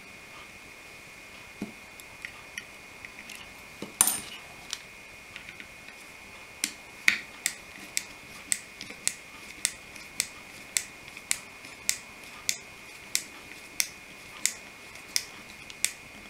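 Small screwdriver working screws into a model locomotive's metal chassis: a few scattered clicks and a knock about four seconds in, then a steady run of sharp metallic ticks, nearly two a second.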